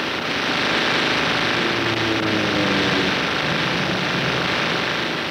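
HH-53 rescue helicopter hovering, heard from inside the cabin: a steady, dense rush of rotor and turbine noise, with a faint falling whine about two seconds in.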